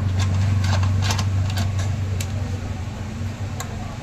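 A steady, low machine hum, loudest in the first half, with scattered light clicks and taps from hand work on the fuel pump flange of a motorcycle fuel tank.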